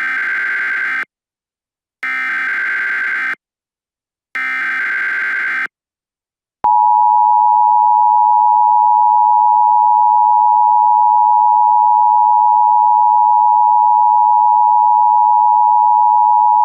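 Emergency Alert System SAME header: three bursts of digital data tones, each about a second long, a second apart. About six and a half seconds in, the steady two-tone EAS attention signal (853 and 960 Hz) starts and holds for about ten seconds, louder than the bursts.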